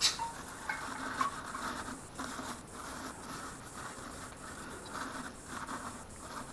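Light hand work on the engine's top end: a sharp click at the start, then faint scraping, tapping and handling noises.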